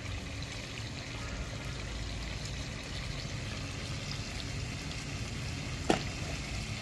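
Chicken pieces simmering in their juices in a steel karahi over a gas burner turned up high: a steady bubbling hiss. A single sharp knock near the end.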